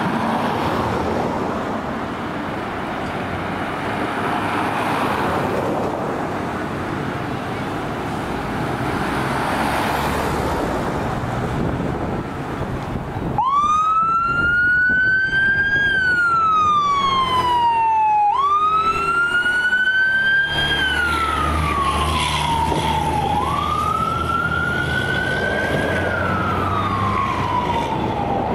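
American LaFrance fire engine responding: engine and road noise at first, then about halfway its electronic siren starts wailing. The siren rises and falls slowly, about one cycle every five seconds, over the rumble of the truck's engine.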